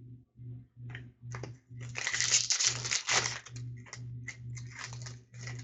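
Foil trading-card pack wrapper being torn open and crinkled by hand, the loudest stretch of tearing and crackling about two seconds in, with lighter crinkles before and after.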